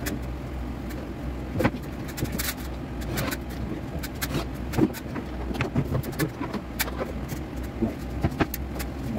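Irregular light knocks and clicks of cabinet doors and their fittings being handled and adjusted, over a steady low hum.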